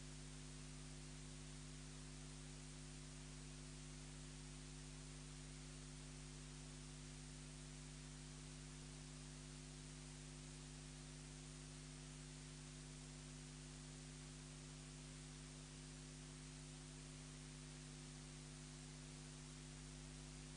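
Near silence: a steady hiss with a low electrical hum.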